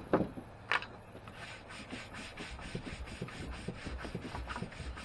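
Charred post oak board being scrubbed by hand, with quick back-and-forth strokes about four a second, knocking loose the burnt surface. Two sharp knocks come in the first second before the scrubbing starts.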